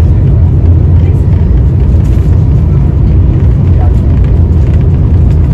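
Steady low rumble of an Italo high-speed train running at speed, heard from inside the passenger cabin.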